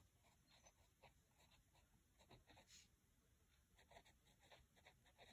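Faint scratching of a pencil writing on lined paper, in many short, irregular strokes as words are written out.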